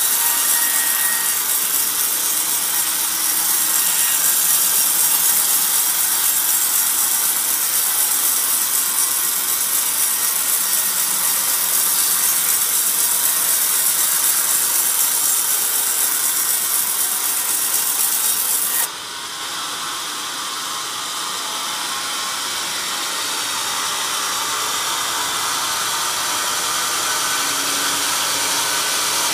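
Sawmill band saw ripping a coconut log: a loud, steady hissing cut. About two-thirds of the way through, the high hiss cuts off suddenly and the saw runs on more quietly.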